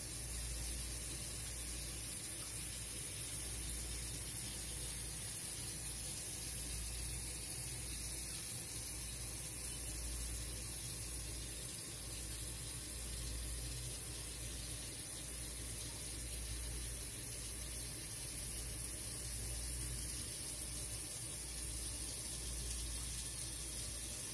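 Steady, unchanging rushing noise with no separate events in it.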